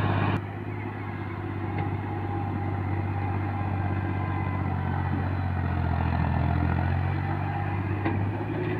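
Tractor engine running steadily with a low, even drone as the tractor hauls a loaded trolley of earth.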